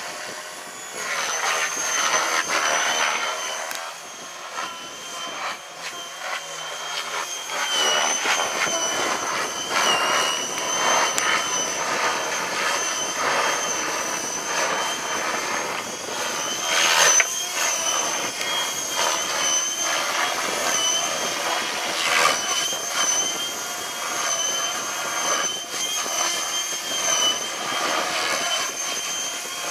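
A small motor running with a steady high-pitched whine that wavers slightly in pitch, over an uneven rushing noise that swells and fades, as from wind on the microphone.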